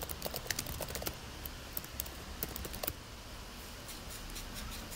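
Typing on a computer keyboard: quick, irregular key clicks that thin out after about three seconds.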